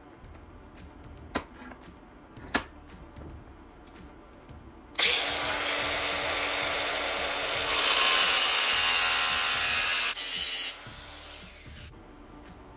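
Cordless angle grinder starting up about five seconds in and grinding an aluminum bracket held in a bench vise; the sound gets louder and higher-pitched partway through as the disc bites into the metal, then drops and winds down. A few light metallic clicks of the piece being handled in the vise come before.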